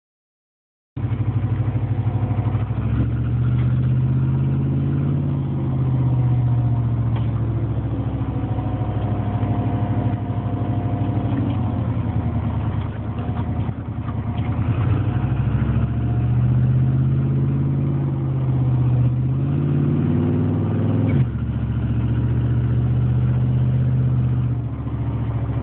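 Car engine running near idle with a rapid, rhythmic knock that the owner suspects may be piston slap; its speed rises and falls slightly a couple of times.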